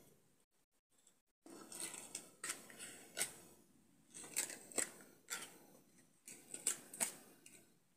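Dry tingui seed-pod shells rustling and clicking against each other as they are handled and strung on a thread. It is quiet for about the first second and a half, then comes a run of sharp, dry clicks and crackles.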